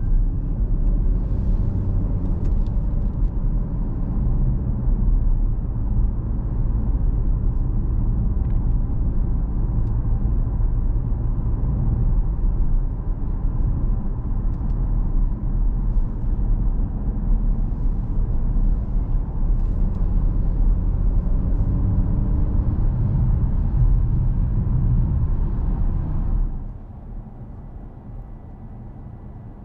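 Cabin noise of a 2021 Mercedes E300e plug-in hybrid on the move: a steady low rumble of road and tyre noise with faint tones rising in pitch as the car gathers speed. Near the end the noise drops much quieter.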